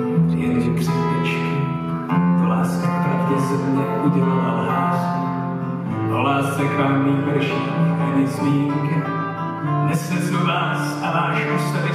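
Live song played on a strummed acoustic guitar, with a sustained low bass note under the chords that changes every couple of seconds.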